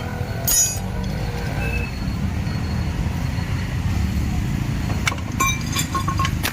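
Metal tools clinking on metal during motorcycle tyre removal: one ringing clink about half a second in and a quick run of clinks near the end, over a steady low vehicle rumble.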